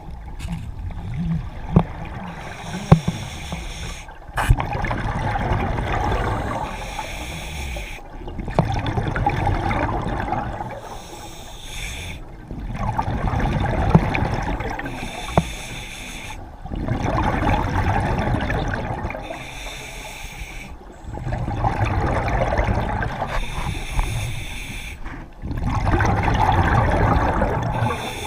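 Scuba diver breathing underwater through a regulator, in a slow steady rhythm: each breath a gurgling surge of exhaled bubbles, about one every four seconds. A few sharp clicks come in the first few seconds.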